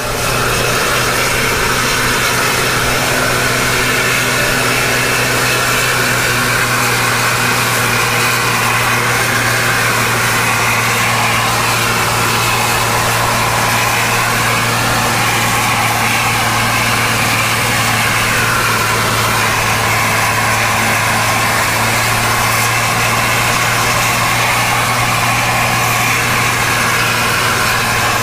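Steady engine drone with road noise, heard from close behind a tour coach climbing a steep hill. A low hum holds one pitch throughout, with no gear changes or revving.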